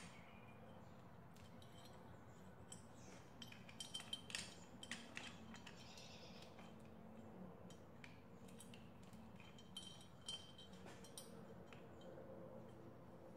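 Faint, scattered metallic clinks and light taps from a small motorcycle engine's cylinder and cam chain as the cylinder is worked down over its studs. A cluster comes about four to five seconds in and a couple more around ten seconds.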